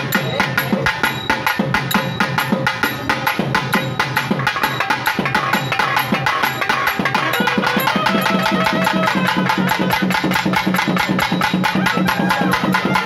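Fast, loud traditional festival drumming with many strokes a second, a wavering melody over it, and a steady low drone that comes in about eight seconds in.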